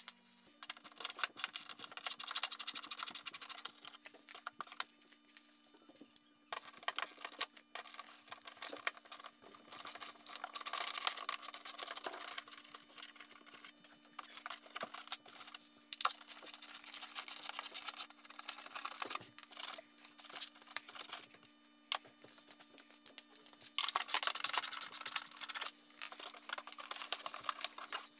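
Socket ratchet clicking in quick runs as a 10 mm nut is worked loose behind a car's plastic fender liner, with the liner rattling and rubbing against the tool.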